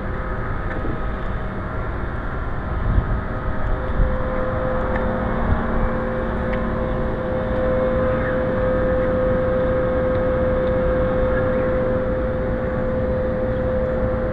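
City street ambience: a steady mechanical hum with a droning tone that grows stronger about five seconds in, over low rumbling noise, with a few knocks around three to four seconds in.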